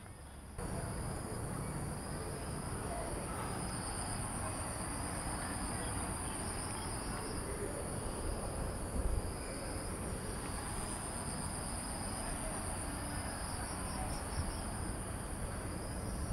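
Insects trilling steadily in a high, fast pulse, with a second, lower trill that comes and goes, over a steady low noise. It starts about half a second in.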